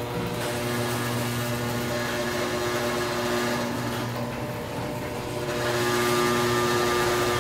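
Overhead Door model 100A garage door opener running the door down: a steady motor hum with several tones, the unit vibrating hard.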